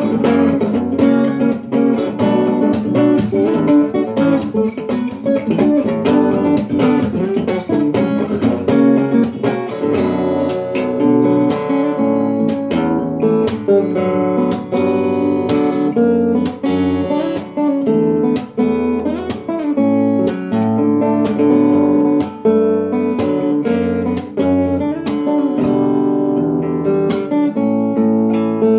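Solo fingerstyle playing on a steel-string acoustic guitar: a plucked melody over bass notes, with quick, crisp note attacks throughout.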